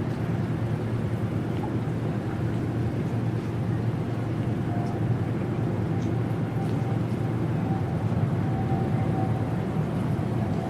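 Field recording of the River Thames in gentle flow: a steady, even wash of water over a low hum. A faint steady tone comes in a little before halfway.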